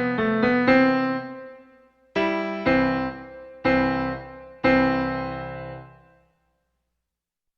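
Piano music coming to its end: a run of notes, then three chords struck about a second apart, each ringing and dying away, followed by silence.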